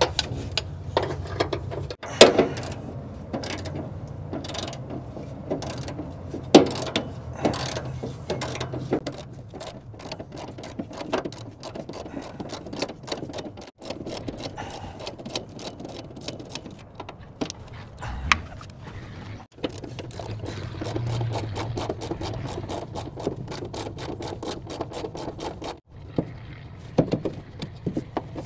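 Hand ratchet wrench clicking in quick runs while the bolts holding a truck's wiper motor to the cowl are turned out, with a few louder metal knocks from tools and parts.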